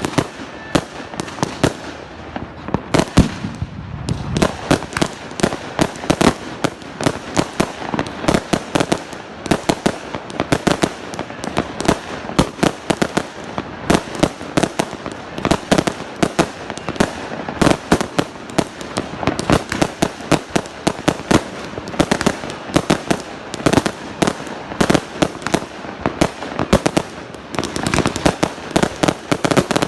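Fireworks going off in a rapid, unbroken barrage of bangs, several a second, with a deeper, heavier bang about three seconds in.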